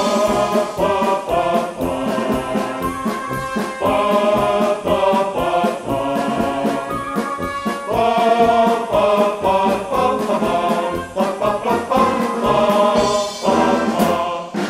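Instrumental break of a song: orchestral backing with brass over a steady beat, between sung choruses.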